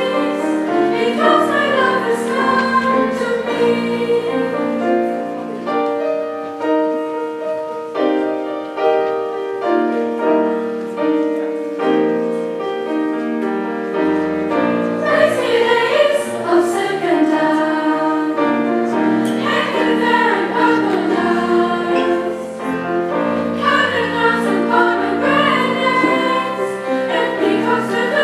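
School choir singing in several-part harmony, holding long chords. The singing is softer for a few seconds, then swells fuller about halfway through.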